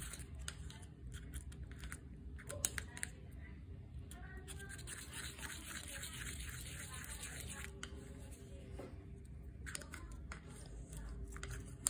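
Clay and dish soap being stirred in a container: faint, irregular scraping and clicking of the utensil against the container.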